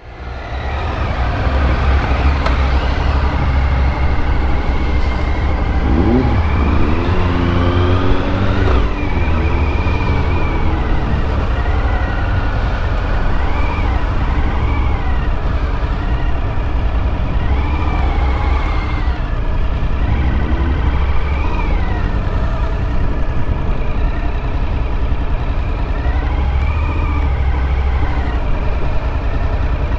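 Motorcycle engine running on the road, its pitch rising and falling with the throttle, over a heavy low rumble of wind noise.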